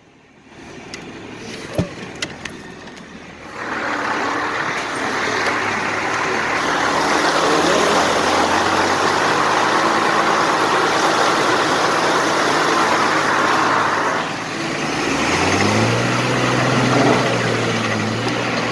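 A vehicle's engine pulling through a river crossing. From about three seconds in, a loud steady rush of churned water lasts about ten seconds. Near the end the engine revs up and holds a higher pitch.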